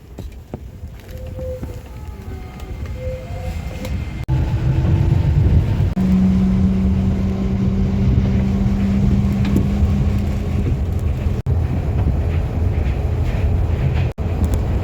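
New Shuttle rubber-tyred people-mover train running, heard from inside the car: a steady low rumble that grows sharply louder about four seconds in, with a strong steady hum through the middle.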